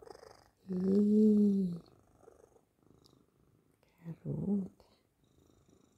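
Domestic cat purring softly while being stroked. About a second in, one long voiced call rises and falls, the loudest sound here.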